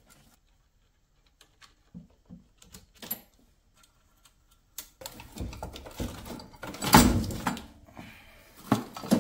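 Hand work on a snowmobile battery: faint ticks of a screwdriver on the battery terminal, then louder metal clinks and knocks as the battery's rusty hold-down bracket is worked loose, with one heavy clunk about seven seconds in.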